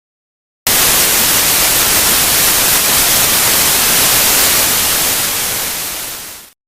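Loud static hiss that cuts in suddenly about half a second in, holds steady, then fades and cuts off near the end.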